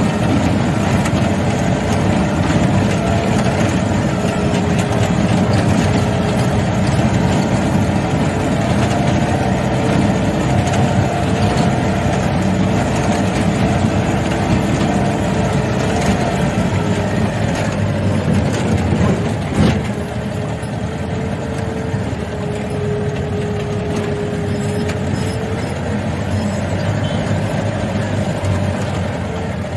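Vintage Land Rover's engine running steadily, heard from inside the vehicle as it drives. A single sharp knock comes about two-thirds of the way through, after which it runs a little quieter.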